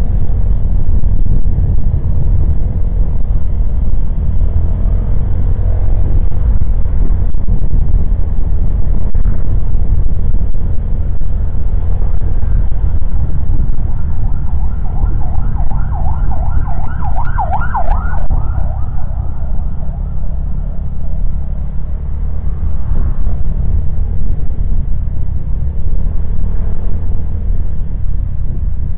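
Steady heavy rumble of a motorcycle's engine and wind noise on the move. About halfway through, a wavering high tone rises over it for a few seconds.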